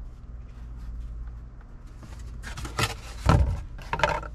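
Cardboard and tools being handled: rustling and scraping as a cardboard template is put down, with a heavier knock about three seconds in. A steady low hum lies underneath.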